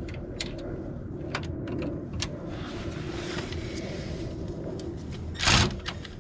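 Socket wrench on a long extension bar working a Mercedes engine mount bolt, backing off one that was over-tightened: a few scattered clicks, then one loud metallic clank about five and a half seconds in, over a steady low hum.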